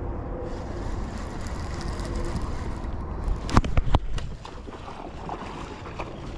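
Steady low wind rumble on the microphone, with a quick cluster of sharp knocks about three and a half seconds in, the loudest part.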